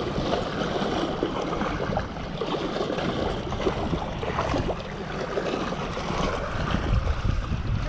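Small waves splashing and washing against seawall boulders, with wind buffeting the microphone in a low rumble.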